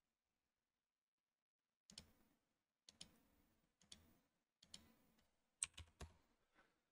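Scattered clicks of a computer mouse and keyboard at the desk, about ten in all, irregularly spaced, starting about two seconds in.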